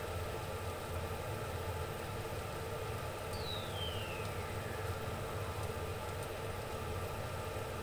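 Steady hum and hiss of a pot of green mussels steaming on the stove. A faint falling whistle sounds about three seconds in.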